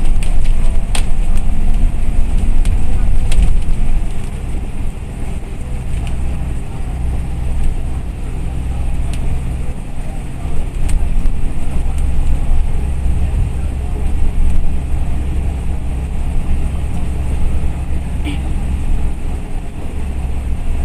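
Inside a moving bus: a steady low engine and road drone, with occasional sharp clicks and rattles from the bodywork.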